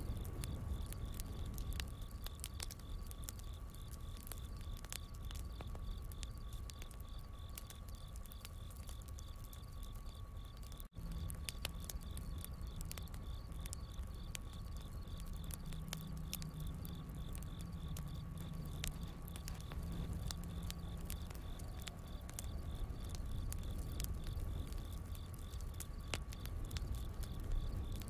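Campfire crackling with scattered sharp pops, over a steady chorus of crickets chirping in an even rhythm and a low rumble. The sound drops out for an instant about eleven seconds in, as a looped ambience track restarts.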